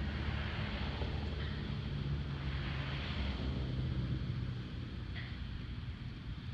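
Electric blower fan of an inflatable yard decoration running with a steady low hum, with wind noise over it.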